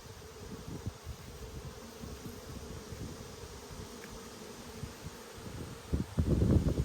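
Honeybees buzzing in a steady hum around an open hive during a frame inspection, with a louder burst of rustling noise about six seconds in.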